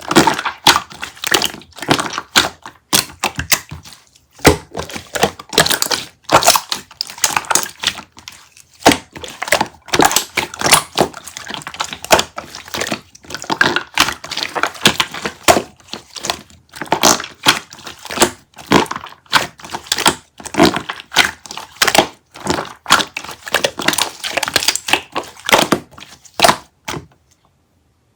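A dense, irregular run of crunching, crackling clicks and taps, with short lulls twice and a quieter stretch near the end.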